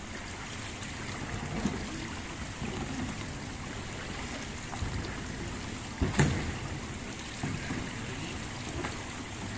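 Water splashing and trickling as a capsized sea kayak is lifted upside down and emptied during a rescue drill in an indoor pool, with a sudden thump and splash about six seconds in, the loudest moment, as the hull is set back down.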